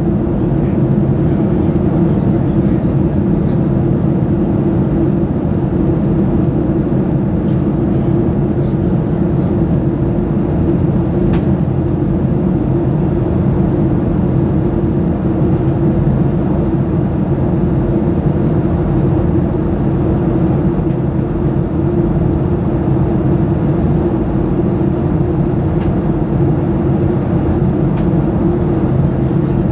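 Steady cabin noise inside a Boeing 737-800 in flight: the even drone of its CFM56 jet engines mixed with the rush of air past the fuselage, holding at the same level throughout.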